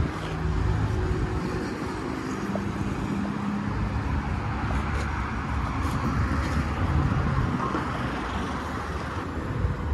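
Motor vehicle engine running steadily at low revs, mixed with city street traffic.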